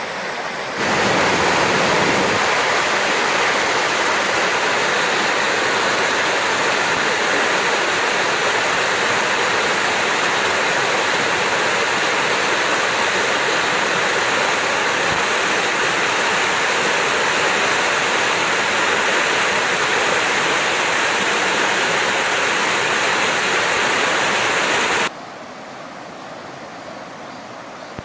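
Mountain valley stream rushing in a steady, loud flow. The rush jumps louder about a second in and drops suddenly to a softer rush near the end.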